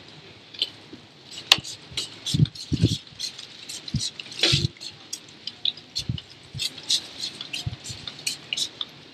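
Hand trigger spray bottle misting anti-corrosion fluid onto a motorcycle: quick short spritzes, a few a second and irregular, with a few low knocks and one sharp click among them.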